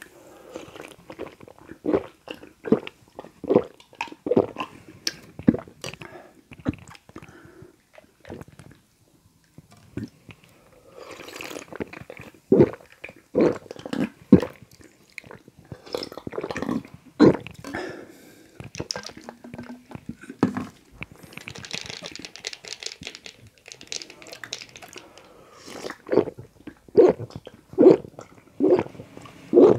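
Close-miked gulping as a person drinks carbonated lemon soda: swallows come in quick runs of about one every second or less, with short pauses between the runs.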